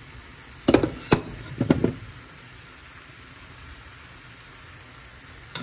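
Four sharp knocks in the first two seconds as a bowl is tapped against the rim of a stainless steel pan to empty it. Then a low, steady sizzle of sliced zucchini and yellow squash cooking in the pan.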